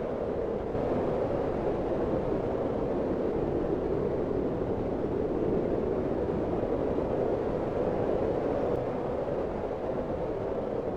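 Strong blizzard wind blowing steadily, a dense rushing howl centred low in pitch, a little louder from about a second in.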